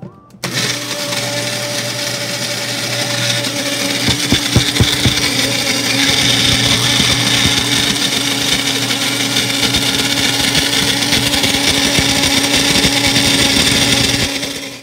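Single-serve blender motor running steadily, grinding boiled red chilies, tomato, garlic and ginger with water into a chutney. It starts about half a second in and cuts off just before the end, with a short patch of clattering about four seconds in as chunks hit the cup.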